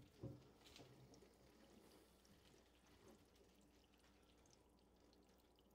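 Near silence, with a faint sound of water filling a Waterdrop under-sink filter housing as the cold supply valve is opened, and a light click about a quarter second in.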